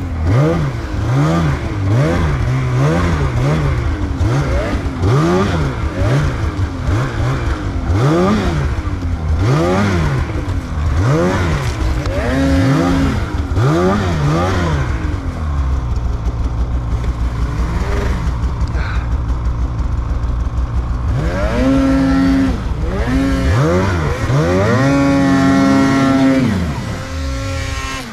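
Snowmobile engine worked in short throttle bursts, its pitch rising and falling about once a second as the sled is rocked and pushed through deep snow. Partway through it settles to a steadier low run, then is revved up and held high several times near the end.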